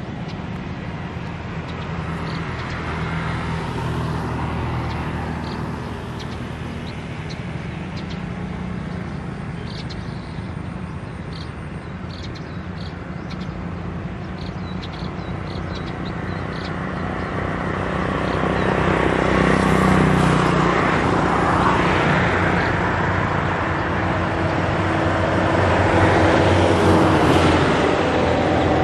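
Road traffic: a steady engine hum with vehicles passing, swelling louder twice in the second half.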